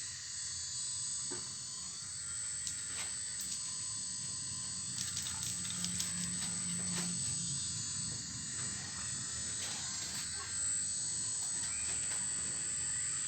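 Full-metal RC excavator working, with a steady high whine from its running drive and scattered clicks and scrapes as its bucket digs through rock and soil.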